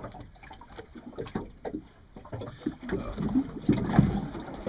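Water slapping and lapping irregularly against the hull of a small fishing boat, the knocks growing louder in the second half.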